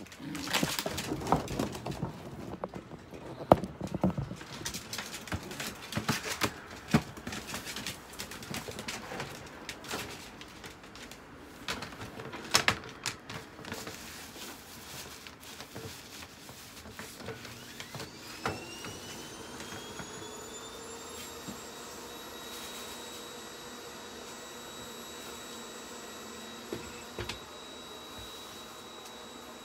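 Scattered knocks and rattles for the first half. Then, about eighteen seconds in, a small electric motor starts up with a rising whine and settles into a steady hum that runs on.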